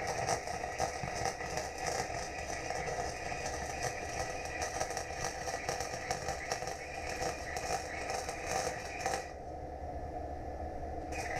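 Electric welding arc crackling in a continuous run. It stops about nine seconds in and starts again near the end, over a steady background hum.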